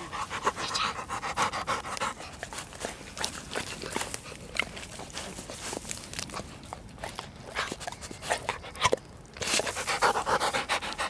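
Labrador panting quickly and rhythmically, right at the microphone, louder near the start and again near the end.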